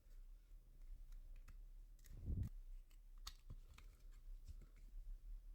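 Faint, scattered small clicks and scrapes of a pry tool working at the metal case of an iPod hard drive, with one soft low thump about two seconds in.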